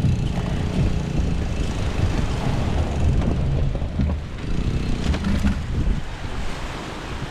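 A fishing boat's engine running roughly at the shoreline, a low rumble that drops away about six seconds in; it keeps cutting out and does not sound good. Surf and wind noise underneath.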